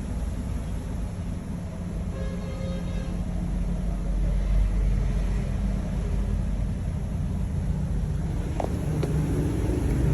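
Chevrolet car engine idling steadily with a low, smooth running sound and no knock: the warm-engine knock has been cured. A couple of light clicks come near the end.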